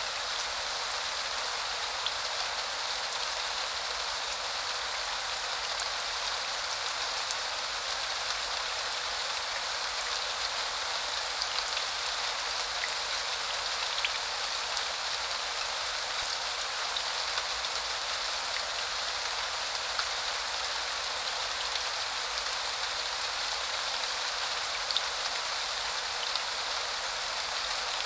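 Steady spring rain falling, an even hiss of rain on surfaces with scattered individual drops ticking.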